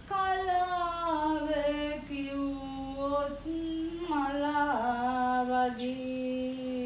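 A woman singing a Sinhala drama song with no accompaniment. She sings long held notes that glide in pitch, slides down about four seconds in, and ends on a low held note.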